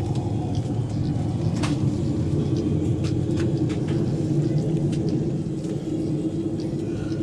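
Steady low cabin rumble inside an Airbus A330-200 as it moves on the ground, with a few faint clicks.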